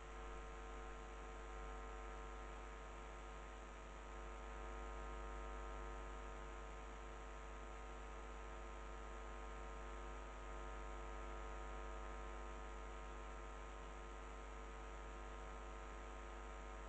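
A steady electrical hum with a faint hiss, unchanging throughout.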